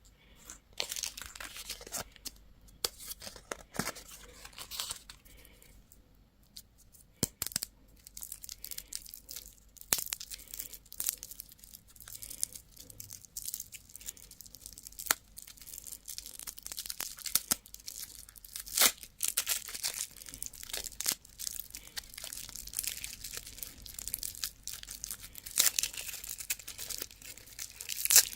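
Plastic candy wrappers being crinkled and torn open by hand, an irregular stream of crisp crackles and sharp snaps, with a quieter lull a few seconds in.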